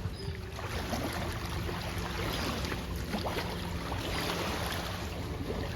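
Steady low motor hum under wind and water noise, with scattered light clicks.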